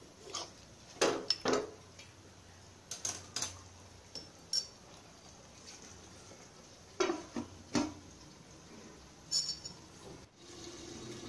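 Stainless-steel ladle clinking and knocking against the rim and sides of a steel cooking pot of chicken gravy, in scattered strikes. Near the end a metal lid is set on the pot with a ringing clink.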